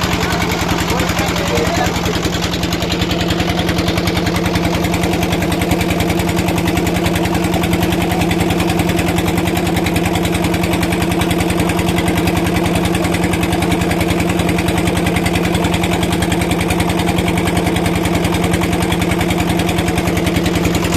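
A small engine running steadily at a constant speed, with a fast, even firing beat.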